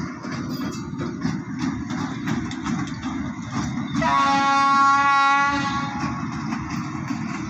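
Alstom diesel locomotive passing close, its engine and wheels rumbling with regular clacks over the rail joints. About four seconds in, a train horn sounds once for about a second and a half, the loudest sound here.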